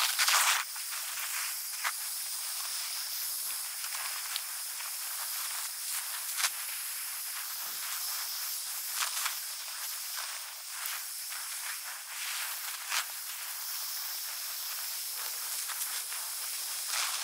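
Garden hose pistol-grip spray nozzle spraying water onto soil and straw, a steady hiss.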